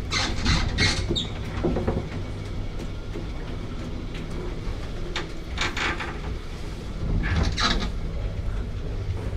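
Paternoster lift cabin travelling through the turnaround at the end of its shaft: a steady low mechanical rumble, with short bursts of creaking and rattling near the start, about five and a half seconds in and about seven and a half seconds in.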